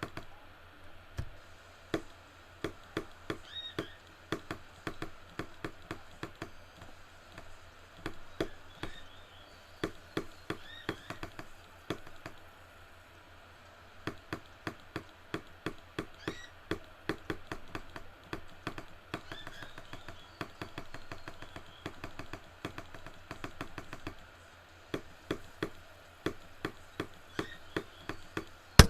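Firework crackling weakly: a long irregular run of faint sharp pops, a few a second, breaking into a loud rapid burst of cracks at the very end. Birds chirp faintly now and then.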